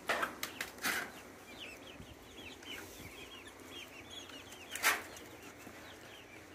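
A flock of hens clucking inside the coop, a steady stream of short, quick calls, broken by a few sharp knocks just after the start and a louder one about five seconds in.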